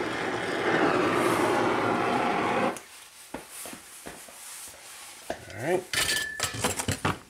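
Low-pressure oxyacetylene torch (DHC 2000 Cobra torch) hissing steadily as its flame heats a snapped starter bolt to break it loose, shut off suddenly about two and a half seconds in. Then the torch is handled on a metal workbench: scattered metal clinks and clatter, with a few short squeaks.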